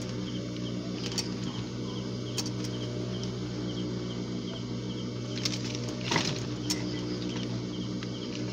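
Industrial sewing machine's motor humming steadily while the fabric and zipper are guided by hand, with a few light clicks.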